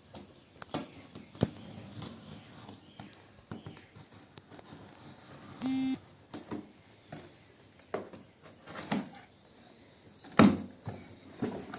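Vacuum cleaner's shipping box and packing being opened and handled by hand: scattered knocks, scrapes and rustles, a short squeak about six seconds in, and a loud thump near the end.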